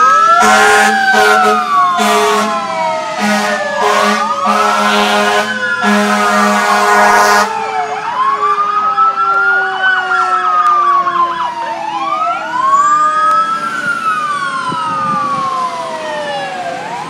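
Fire engine sirens: several wailing at once, rising and falling and overlapping, with a quick yelp about eight seconds in and a lower siren tone sliding slowly down. A truck air horn sounds in repeated blasts over the first seven seconds or so.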